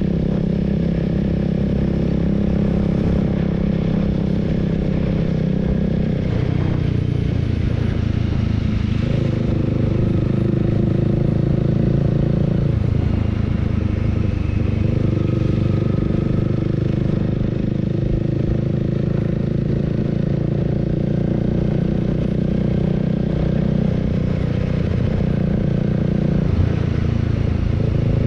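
Honda Rebel 300's single-cylinder engine running while riding, its pitch dipping and picking up again several times as the revs change, over a steady hiss.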